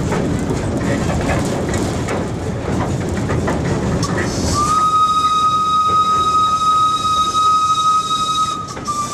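Small wood-fired steam locomotive running along the track with a rough, clattering rumble. About halfway through its steam whistle starts and is held as one long, steady blast, with a short break near the end.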